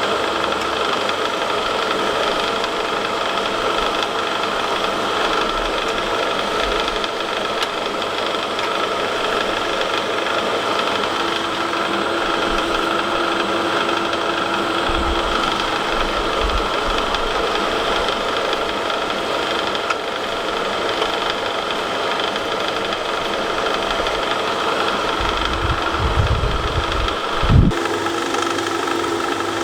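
Blacksmith's forge running steadily while the spanner heats. A low knock comes near the end.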